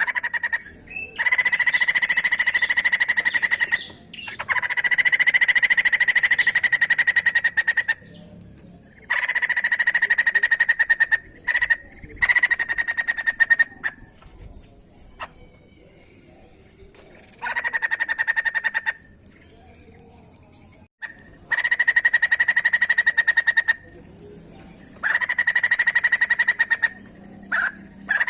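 White-crested laughingthrush (poksay jambul) giving loud bouts of rapid chattering calls, each two to three seconds long, about seven bouts with short pauses between.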